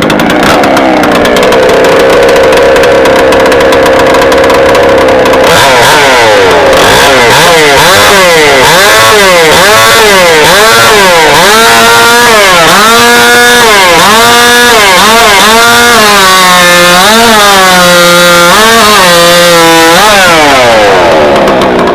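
Stock two-stroke competition chainsaw running at full throttle, first at a steady high pitch, then, from about six seconds in, dipping and recovering in pitch again and again, about once a second, as it cuts through the log under load. It stops right at the end.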